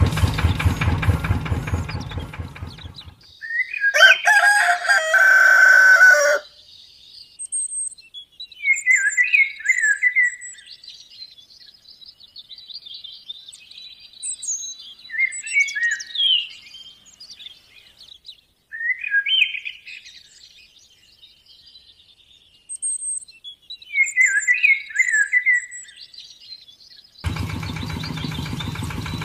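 An engine runs for the first three seconds and stops. About four seconds in, a rooster crows once, a loud call of about two seconds. Small birds then chirp on and off for some twenty seconds, and the engine starts running again near the end.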